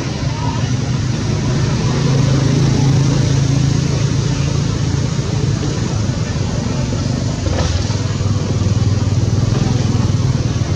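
An engine running steadily with a low hum, its pitch drifting slightly.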